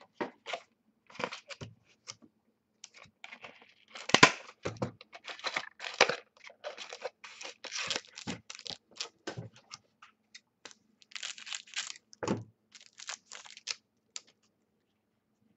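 Foil trading-card pack wrapper being cut and torn open, crinkling and crackling in short, irregular bursts.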